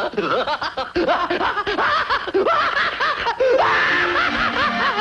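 Cartoon soundtrack: rapid, high-pitched cartoon laughter over an orchestral score. About three and a half seconds in, the music adds a run of held notes stepping downward.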